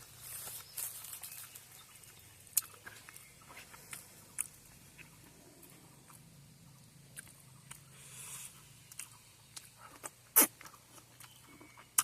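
Someone chewing and eating, with scattered soft clicks and small crunches and one louder click near the end.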